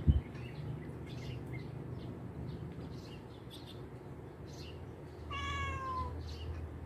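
A domestic cat gives one meow, under a second long and falling slightly in pitch, about five seconds in. Two sharp knocks come right at the start.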